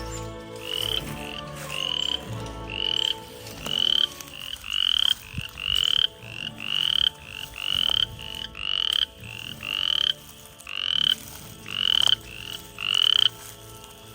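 Loud chorus of frogs: short, high, rising peeping calls repeated about twice a second over a lower steady drone of more distant calling. The calls stop about a second before the end.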